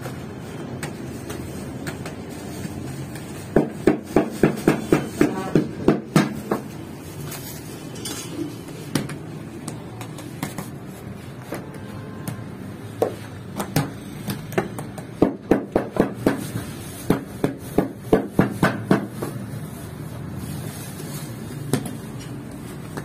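Hands slapping and patting rounds of bread dough flat on a floured work table, in quick runs of sharp pats, about four or five a second: one run about three and a half seconds in, a longer one from about fourteen to nineteen seconds.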